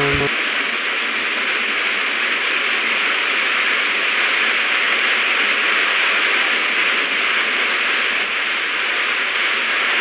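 Waterfall close by, its water crashing into a foaming plunge pool: a steady, hissing rush with little deep rumble.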